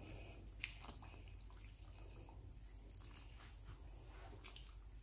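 Faint stirring in a pot of coconut-milk soup: a wooden spoon pushing spinach under and lifting it, with soft liquid sounds and a few small clicks over a low steady hum.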